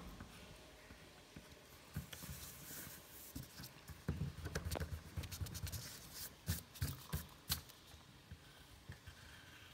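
A hand and an eraser rubbing across a sheet of drawing paper: a scratchy rustle with light knocks against the desk, busiest from about four to seven and a half seconds in.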